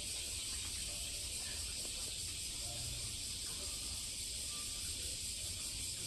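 Steady high hiss over a low hum: constant room noise with no distinct event.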